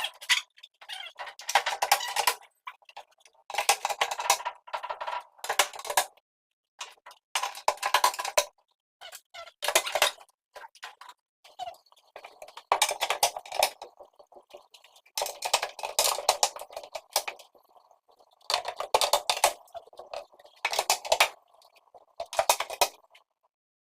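A hand tool working wood in repeated rasping strokes, one every second or two, stopping shortly before the end.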